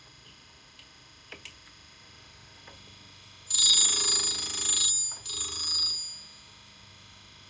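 Grinding wheel of a JXT universal tool grinder grinding the clearance on an annular cutter's teeth: two high, ringing grinding passes about halfway through, the first about a second and a half long and the second under a second, after a couple of light clicks. A faint steady whine from the running wheel lies under it all.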